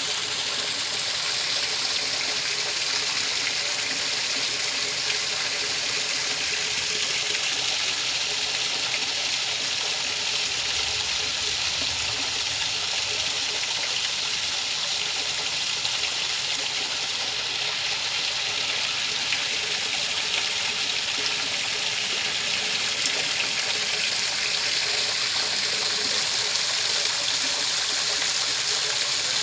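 Steady rushing water, an even hiss that holds constant, played as white noise for sleep.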